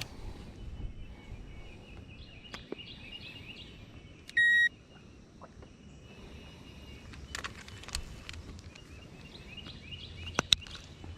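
Birds chirping faintly, with one short, loud electronic beep about four and a half seconds in and a few sharp clicks near the end.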